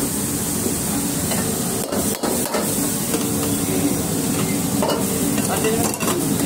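Oil sizzling in a steel wok on a gas burner, with a steel ladle stirring and clinking against the wok and the steel sauce bowls several times.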